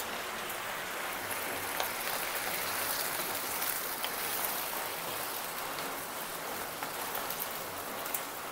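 Steady sizzling hiss of dosa batter cooking on a hot griddle, with a few light taps of a wooden spatula stirring curry in the pan beside it.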